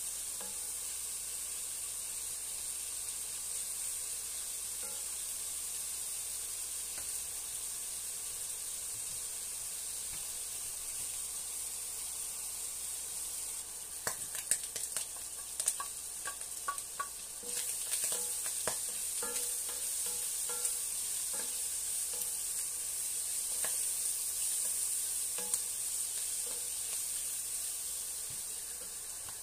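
Mushrooms and meat frying in an enamelled cast-iron pan with a steady sizzle. A wooden spoon stirs and scrapes through them. From about halfway, irregular clicks and knocks of the spoon against the pan join the sizzle.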